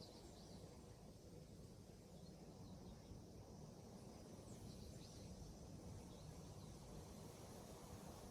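Near silence: low room tone with a few faint, short, high chirps every couple of seconds.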